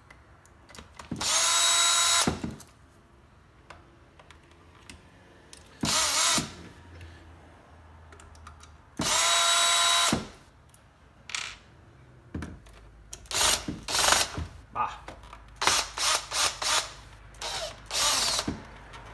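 Makita 18V cordless drill driver spinning in three short bursts of about a second each, a motor whine that rises quickly and then holds steady, as it backs screws out of a coffee grinder's housing. In the second half come many short clicks and knocks.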